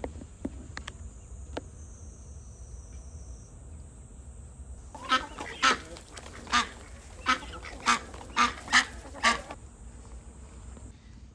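A duck quacking: a run of about eight short, loud quacks, roughly two a second, starting about five seconds in, over a faint steady high hiss.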